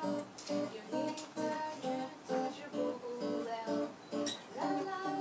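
Guitar music: chords played in a steady rhythm.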